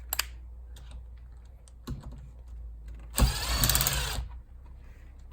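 Sun visor Torx screw being undone with a screwdriver: a few small clicks, then about a second of louder tool noise a little after three seconds in, and another short burst at the end.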